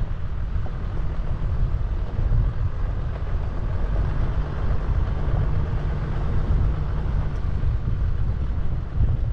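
Steady low rumble of a 4x4 vehicle on the move.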